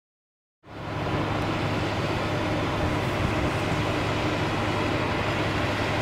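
Tracked bulldozer's diesel engine running steadily as it pushes snow, starting about half a second in after silence and coming up quickly to a steady level.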